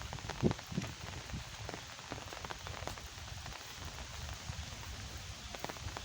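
Rain falling steadily, with many separate drop hits and a few louder ones in the first second.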